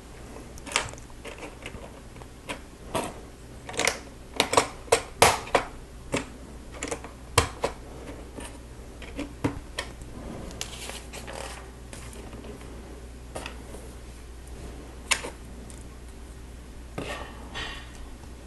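Small plastic Lego pieces being handled and snapped together: irregular sharp clicks, busiest in the first several seconds, then sparser with brief rustling.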